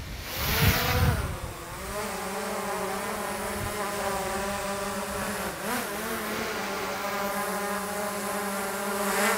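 DJI Mini 4 Pro quadcopter lifting off: its propellers rise in pitch, then settle into a steady buzzing hum as it hovers. A loud rush of air comes about a second in, and a shorter one near the end.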